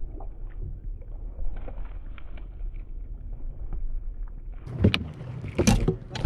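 Steady low rumble of wind and water around a fiberglass bass boat, with faint small clicks, then two loud knocks about a second apart near the end as the landing net is grabbed and handled on the deck.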